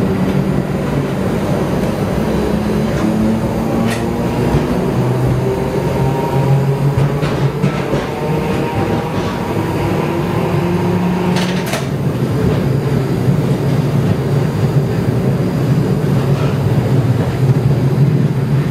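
Electric replica Birney streetcar running along its line, heard from inside the car: a steady rumble of wheels on rail under a motor hum that shifts up and down in pitch as the car changes speed. Two sharp clicks come about 4 and 12 seconds in.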